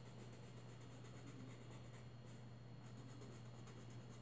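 Faint scratching of a coloured pencil shading on paper in short repeated strokes, over a steady low hum.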